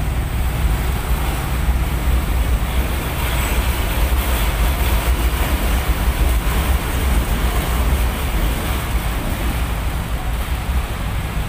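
Steady city street traffic noise with a heavy, fluttering low rumble.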